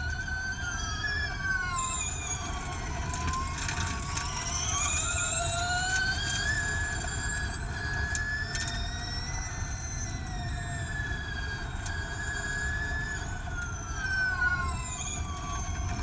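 Formula E Gen2 race car's electric drivetrain whining at speed: a high, multi-tone whine whose pitch falls and rises with the car's speed, over a steady low rumble of road and wind. Its pitch falls about two seconds in, climbs from about three seconds in, and falls again near the end before rising once more, with a few short knocks along the way.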